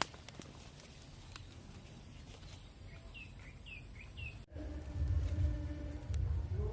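Quiet outdoor ambience with a bird giving about four short, falling chirps a little past halfway. Then an abrupt cut to a louder, low pulsing sound.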